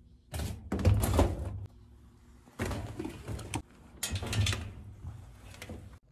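Plastic laundry basket and clothes handled against the top of a laundry machine: three bursts of knocking, scraping and rustling.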